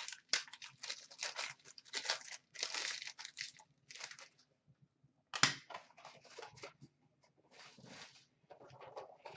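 Plastic wrapping crinkling and tearing in short irregular bursts as a sealed box of trading-card packs is opened by hand, with one sharper snap about halfway through.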